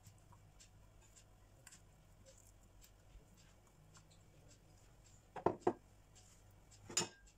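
Light handling sounds of salmon pieces being placed by hand into a glass baking dish: faint scattered ticks, then a quick pair of sharp taps about five and a half seconds in and one more near the end.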